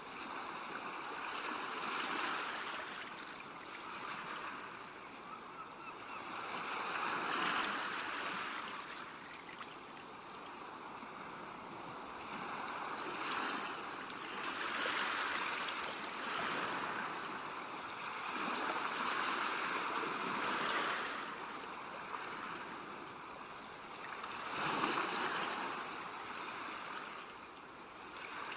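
Ocean waves breaking and washing on the shore: a steady wash that swells with each wave, about every four to six seconds.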